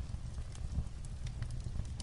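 Fireplace crackling with irregular sharp pops, over a steady low rumble of light rain on a roof.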